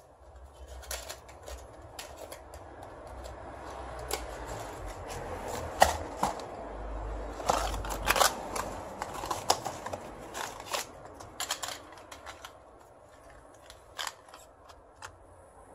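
Handling noises at a metal workbench: a run of sharp clicks and clatters over rustling, busiest in the middle, then a small cardboard box of carbon brushes handled with a last click near the end.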